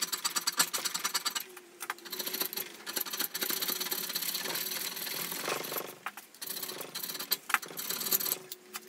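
Carbide hand scraper being pushed hard across the cast iron base of a milling vise: a rapid run of short, harsh rasping strokes, with brief pauses about two and six seconds in. Each stroke takes a cut off the blued high spots in the first roughing pass of surface scraping.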